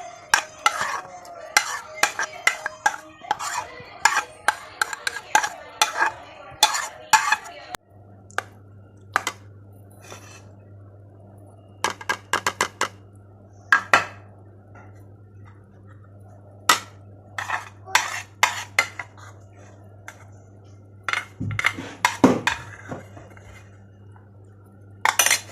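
Kitchen utensils clinking and tapping against dishes, many sharp clinks in irregular runs, densest in the first several seconds. A steady low hum runs under the clinks from about eight seconds in.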